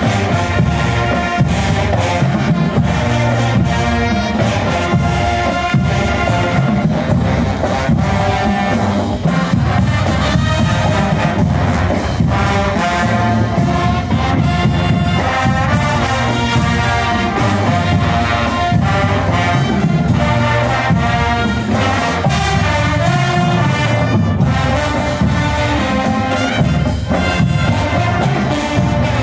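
College marching band playing a tune, brass over a steady drum beat.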